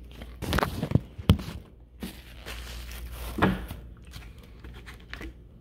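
Handling noise close to the phone's microphone: a few separate knocks and crinkly rustles as hands move objects about.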